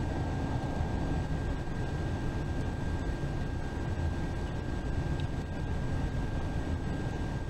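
Steady rumble of road and engine noise inside a bus travelling on the interstate, with a thin, constant high whine over it.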